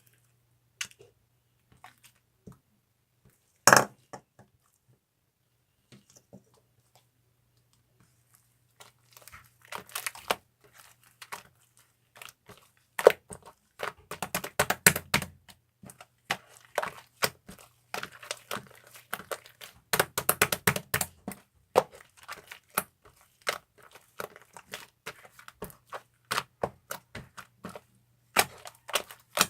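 Slime being squeezed and poked by hand, making sharp crackling clicks and pops. They come sparsely at first, then thick and fast from about nine seconds in.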